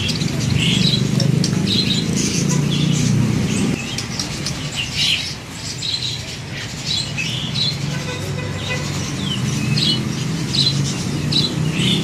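Caged songbirds giving many short, scattered chirps and squawks, over a steady low hum of road traffic.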